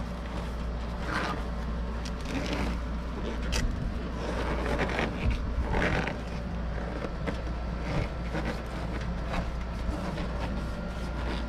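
Plastic protective sleeve being handled and twisted into place over refrigerant line-set insulation: intermittent soft scraping and rustling, with a few small clicks, over a steady low hum.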